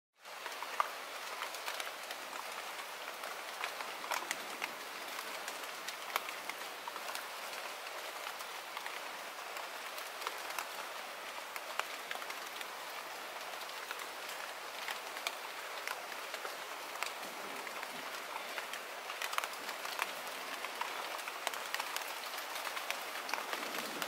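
Light rain falling on a pond and the plants around it: a steady hiss with many single drops ticking sharply here and there.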